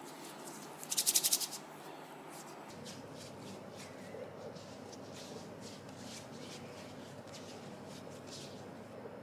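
Hands rubbing cream into skin, slick skin-on-skin rubbing. A quick, loud flurry of rapid rubbing about a second in is followed by softer, scattered strokes.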